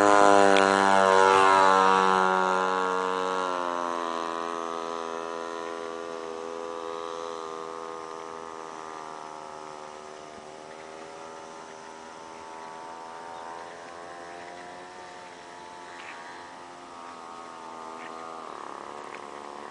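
The fuel engine of a radio-controlled Loening M-8 scale model plane drones in flight. It starts loud, its pitch drops a little, and it fades as the plane flies off into the distance, settling to a faint, steady drone.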